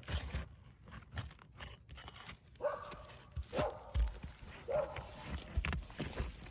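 Roof snake scraping and clicking under asphalt shingles as it breaks their adhesive seal strips. A dog barks three times in the middle, about a second apart.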